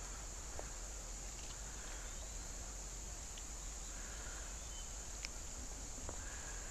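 Steady high-pitched chorus of evening insects, such as crickets, with a few faint clicks.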